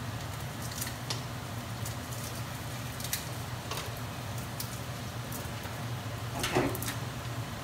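Wooden spoon stirring zucchini ribbons in a stainless steel sauté pan: a few faint, scattered scrapes and clicks over a steady low hum.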